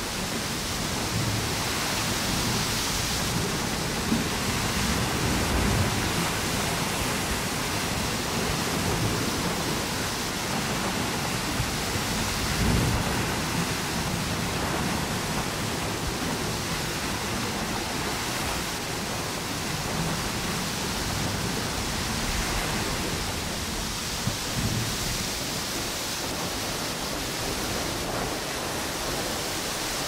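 Ocean waves washing onto a beach and strong wind blowing through palm trees: a steady rush of noise that swells and eases every few seconds, with irregular low rumbling gusts underneath.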